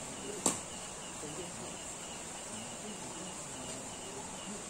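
A single sharp crack of a badminton racket striking a shuttlecock about half a second in. Under it runs a steady high insect drone with faint, evenly repeated cricket chirps.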